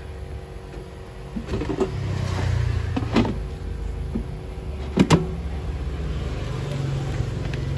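Tefal EY2018 air fryer being set and switched on: sharp clicks and knocks from its dials and basket, the loudest a quick double knock about five seconds in. A low steady hum of the fan running comes in about two seconds in.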